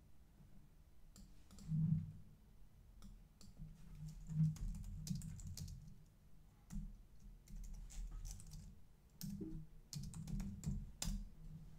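Typing on a computer keyboard: irregular runs of key clicks as a terminal command is entered.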